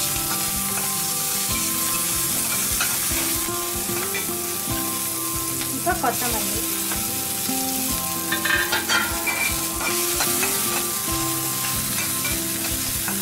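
Curry leaves and a tempering of mustard seeds, dals and chillies frying in a little oil in an aluminium kadai: a steady sizzle and crackle, with a perforated metal ladle scraping and tapping the pan as it stirs.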